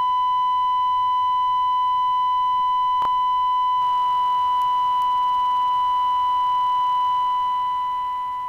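Long continuous synthetic beep at 1000 Hz, like a sensor beep, with a click about three seconds in. From about four seconds, fainter lower tones step downward beneath it, and the beep starts fading near the end.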